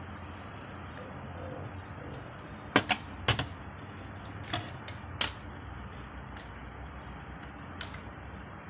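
Sharp metallic clicks and taps, about half a dozen spread over several seconds with a close cluster around the third second, as the carbon brush holder is worked loose and lifted off a car alternator's rear housing.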